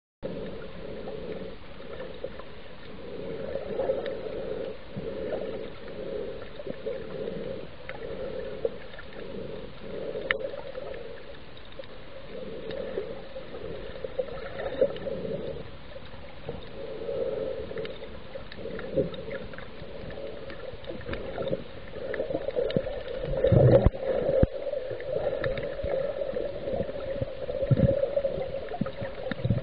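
Muffled underwater ambience picked up by a camera submerged while snorkeling: a steady low murmur of water moving against the camera, swelling and fading, with a few louder low thumps about two-thirds of the way through.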